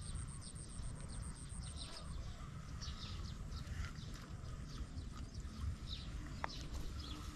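Wind rumbling on the microphone in an open rice field, with short high chirps and ticks scattered throughout.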